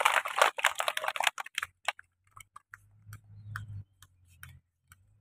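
Schoolchildren's applause dying away: a dense patter of hand claps thins over the first two seconds to scattered single claps, which stop about five seconds in.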